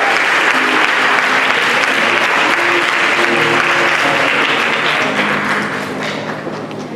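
Audience applauding steadily, with a few sustained instrument notes playing over the clapping. The applause thins out over the last couple of seconds.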